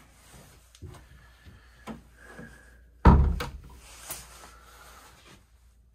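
A wooden cabin door on a motor cruiser is swung shut, closing with one loud thump about three seconds in. A few light clicks and knocks come before it.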